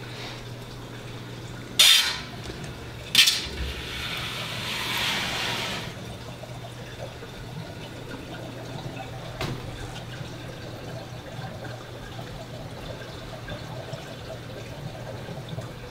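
Water running steadily through a paludarium's pumped filtration, with a steady low hum underneath. Two sharp knocks stand out about two and three seconds in.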